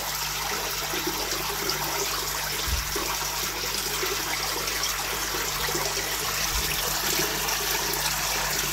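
Water pouring steadily off a ledge into a koi pond, a continuous splashing, with a low steady hum beneath.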